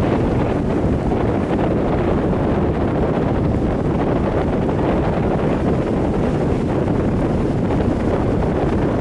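Heavy wind buffeting the microphone over the steady rush of rough surf breaking on the beach.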